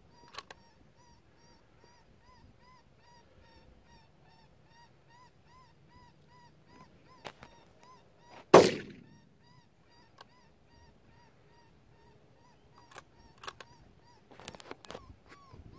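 An electronic predator caller repeating a short, high call about twice a second. About halfway through, a single loud rifle shot cuts across it, and a few fainter knocks follow near the end.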